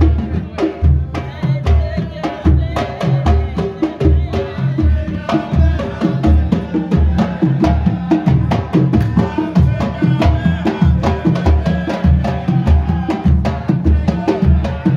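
Saudi Dosari folk performance: large frame drums beaten in a steady, driving rhythm, with sharp high strikes on top and men singing in chorus.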